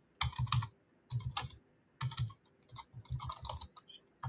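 Computer keyboard being typed on: runs of quick keystroke clicks separated by short pauses, as a word is typed in.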